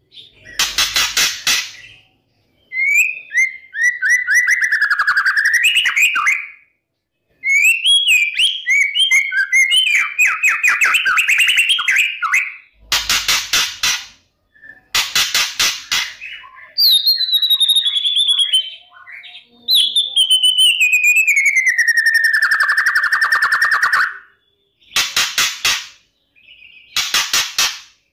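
White-rumped shama singing: short, harsh rattling bursts repeated several times, alternating with fast whistled phrases and one long falling whistle near the end.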